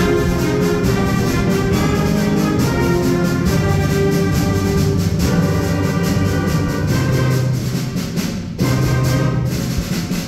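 Middle school concert band playing, brass and woodwinds holding loud chords over a steady percussion beat, with a brief break about eight and a half seconds in before the band comes back in.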